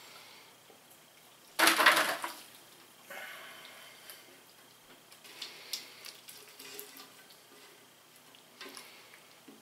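Macaroni and cheese being tipped from a cooking pot into a disposable aluminium foil pan and scraped out with a spoon. A loud clatter lasting under a second comes about one and a half seconds in, followed by softer scrapes and taps of the spoon against the pot and pan.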